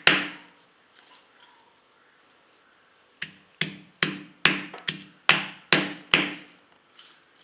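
Stone pestle pounding ginger and garlic in a stone mortar: a pause of about three seconds, then a run of eight sharp strikes, about two and a half a second.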